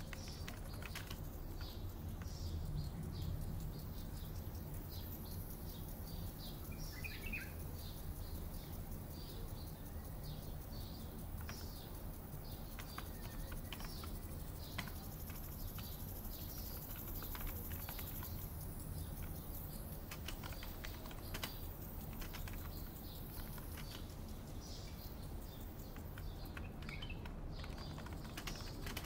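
Small birds chirping on and off over a steady low hum and a faint high hiss, with scattered clicks of keyboard typing. It is a mixed office-and-park ambience.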